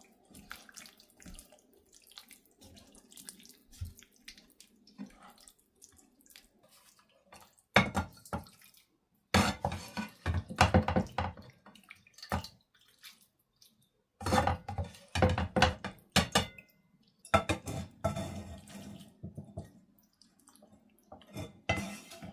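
Water pouring and splashing in several bursts of a few seconds each, with dishes clinking.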